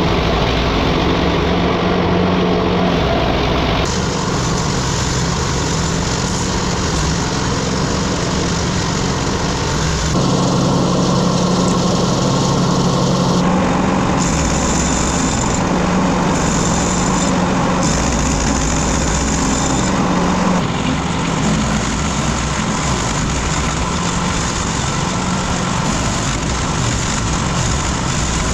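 Small wood chipper's petrol engine running steadily, its sound shifting abruptly a few times.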